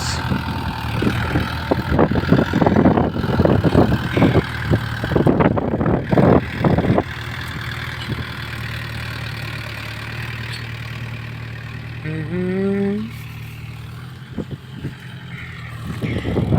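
Tractor diesel engine running steadily, with irregular rumbling bumps through the first seven seconds. A short rising call cuts in once about twelve seconds in.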